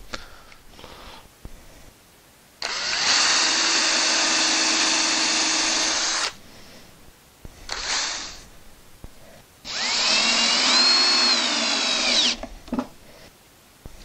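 Cordless drill driving 8x1 Robertson wood screws into a half-inch plywood box: two long runs of the motor whine, of about four and three seconds, with a short burst between them. The pitch wavers near the end of the second run as the screw seats.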